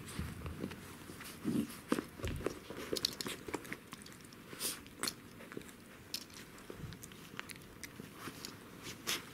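Pembroke Welsh corgi puppies playing and being handled: irregular small clicks, scratches and rustles, with chewing-like crunchy sounds.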